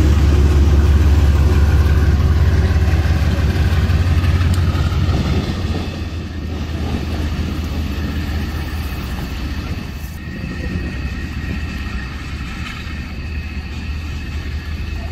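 Diesel-electric freight locomotives running light past at close range, a deep steady engine rumble. About six seconds in the rumble drops to a quieter, farther-off locomotive engine sound.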